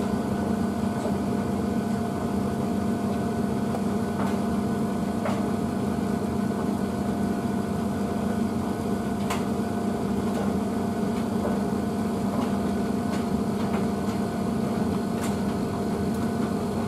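Blomberg WNF9448 front-loading washing machine running with a steady hum as its drum turns the wet load of dog bedding, ahead of the final spin. A few faint ticks sound over the hum.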